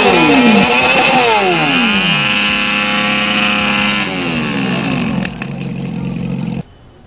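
Motor scooter engine being ridden, its pitch falling several times as the throttle eases off, then running steadily before cutting off suddenly near the end.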